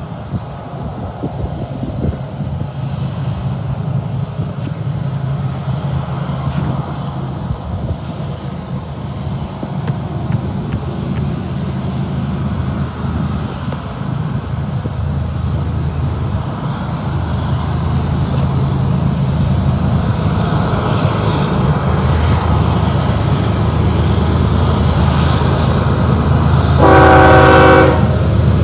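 Diesel locomotives of a Union Pacific freight train led by UP 7925 running with a steady low hum that grows louder as the train approaches, then one horn blast of about a second and a half near the end.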